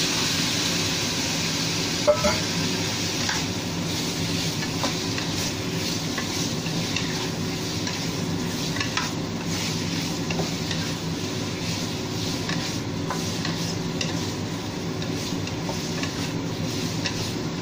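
Marinated chicken pieces sizzling in a hot oiled wok with garlic and shallots, stirred with a wooden spatula that scrapes and taps the pan. The sizzle is strongest at the start, with the chicken just in, and there is one sharp knock about two seconds in.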